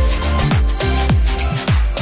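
Background music with a steady electronic dance beat, a deep kick drum about twice a second.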